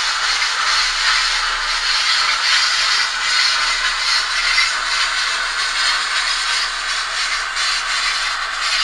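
Sound decoder of a PIKO N-scale BR 82 steam locomotive model playing its simulated curve squeal of wheel flanges grinding on rail, a steady hissing scrape through the model's small speaker as the locomotive runs.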